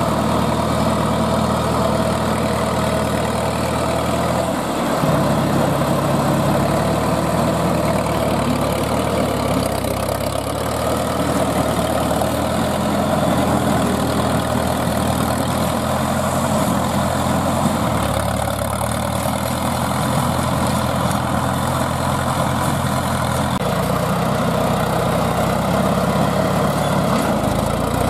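Engine of a crawler-track tractor with a rotary tiller running steadily while tilling dry stubble. Its pitch shifts up and down a few times.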